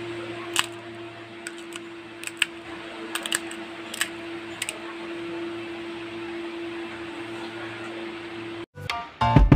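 A steady low hum with scattered light clicks and taps over it, cut off abruptly near the end.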